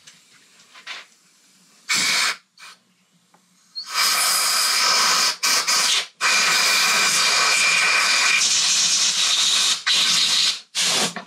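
Compressed-air blow gun blasting air through a motorcycle brake caliper's chamber to clear out cleaner and dirt. It gives a short hiss about two seconds in, then long, near-continuous blasts from about four seconds on, broken by a few brief pauses.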